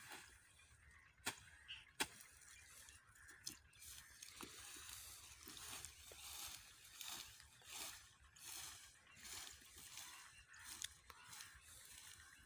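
Faint rustling of freshly cut green fodder being gathered up by hand from the ground, in short irregular bursts. There are two sharp clicks about one and two seconds in.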